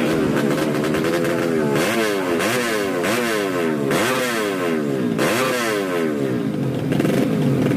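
Tuned 130cc underbone (bebek) drag-bike engine being revved in quick blips at the start line, its pitch climbing and dropping about five times in a row, then settling back to a steady fast idle near the end.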